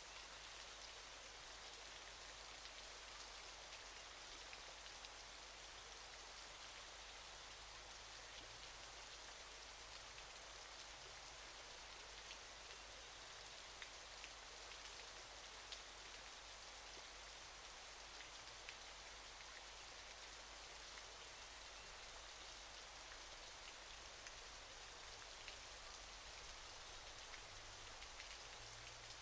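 Faint, steady hiss of a waterfall's falling water, with small scattered droplet ticks and no change throughout.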